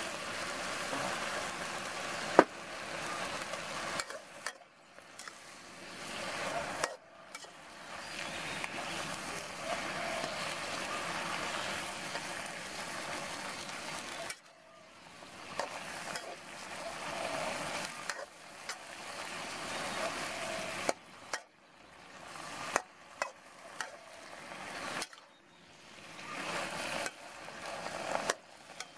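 Leafy greens sizzling as they are stir-fried in a hot wok, with a metal spatula scraping the pan and clinking against it several times; the loudest clink comes about two seconds in.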